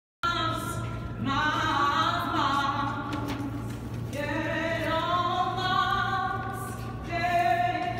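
A subway busker singing, with long held notes that glide up and down in pitch, over a steady low hum. The singing cuts in suddenly a fraction of a second in.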